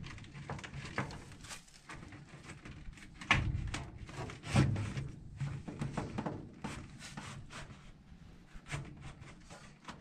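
A furnace air filter being pushed into its slot in the sheet-metal furnace cabinet: irregular knocks, clicks and scraping of handling, with two louder knocks about three and a half and four and a half seconds in.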